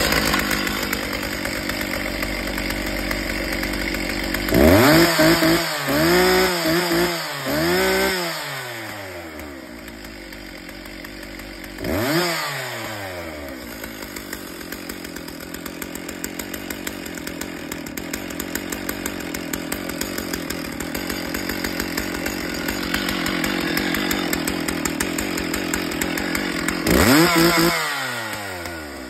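Stihl two-stroke chainsaw engine running and revved in the air without cutting: several quick throttle blips about five to eight seconds in, another about twelve seconds in, and a last one near the end, dropping back to a steady idle between them.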